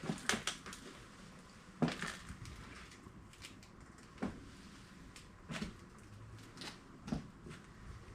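Irregular light knocks and clicks, about a dozen, a quick cluster in the first second and then one every second or so: small hard objects or surfaces being handled or bumped in a room.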